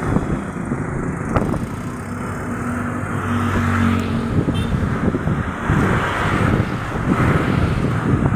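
Strong gusty wind buffeting the microphone, a loud uneven rumble and rush. A steady low drone runs underneath from about two to four seconds in.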